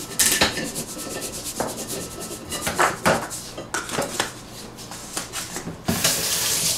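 Spice shakers being shaken over raw ribs in an enamel roasting pan, then set down and picked up on the countertop: scattered clicks and knocks, with a short burst of hiss near the end.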